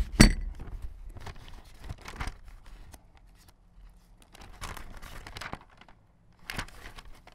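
Microphone handling thumps as the fur-covered microphone is set down, twice right at the start. Then scattered paper rustling and light knocks as the pages of a thick service manual are turned.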